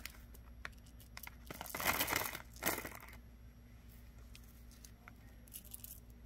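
Small clear plastic bag crinkling as beads are put back into it, with light clicks of glass and metal beads knocking together. The crinkling is loudest twice, about two seconds in and just under three seconds in.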